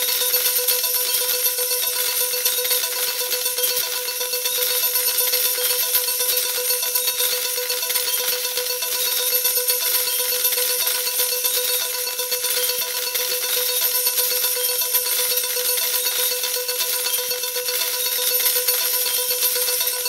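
Video slot machine big-win celebration sound: a continuous jingling shower of coins over a steady held tone while the win counter tallies up.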